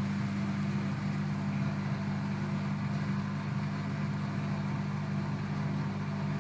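Hoover All In One washing machine running at the start of a cycle: a steady, even low hum.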